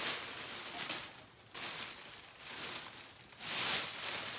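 Rustling as items are rummaged through and handled, coming in a few bursts and loudest near the end.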